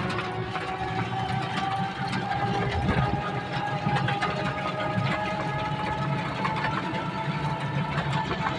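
Electric rickshaw's drive motor whining steadily as it moves along the road, over a low rumble from the vehicle, heard from inside the cab.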